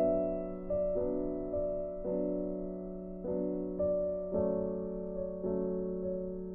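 Slow background piano music, notes and chords struck about once a second and left to ring.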